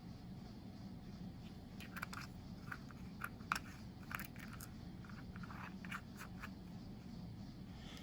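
Faint, irregular clicks and light crinkling from small objects and packaging being handled, over a low steady hum.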